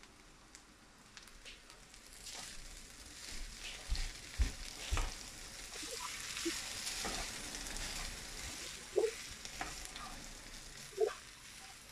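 Vegetable egg fried rice sizzling in a non-stick wok as a spatula stirs and tosses it. The sizzle builds after about two seconds, with a few knocks and scrapes of the spatula against the pan.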